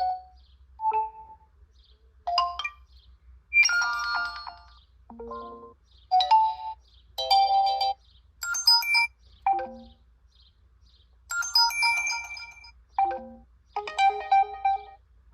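Realme C55 smartphone ringtones played one after another: a string of short melodic chime phrases of a few notes each, each in a different tone, with brief pauses between them.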